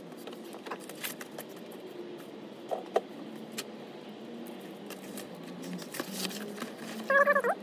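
Scattered small metallic clicks and clinks of hand-work on the oil drain plug and its gasket, with a brief squeaky chirp near the end.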